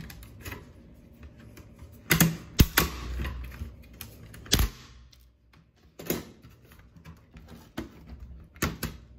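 Plastic case parts of a Fujitsu Lifebook laptop clicking and knocking as they are handled and pried apart. There is a cluster of sharp knocks about two seconds in, then single clicks every second or two.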